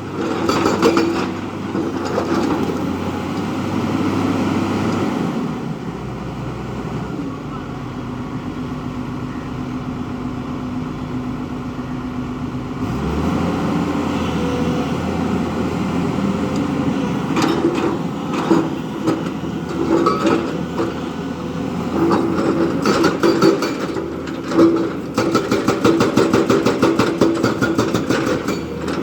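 Diesel engine of a JCB 3DX backhoe loader running as the machine works, with rhythmic knocking in the second half.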